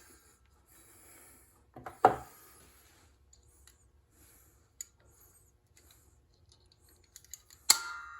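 Metal tools and parts being handled on a crankshaft: scattered light clicks and two sharp knocks, about two seconds in and near the end. The later knock leaves a brief metallic ring.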